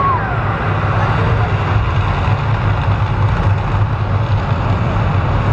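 Deep, steady rumble of the Las Vegas volcano show as its fire eruption dies down, with a short chirp right at the start.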